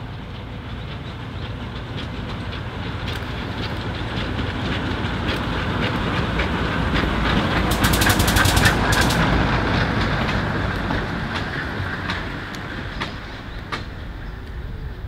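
Narrow-gauge diesel locotractor hauling two goods wagons passing close by, its wheels clicking over the rail joints. The sound grows louder to a peak about eight or nine seconds in, with a quick run of clicks as the wagons go by, then fades.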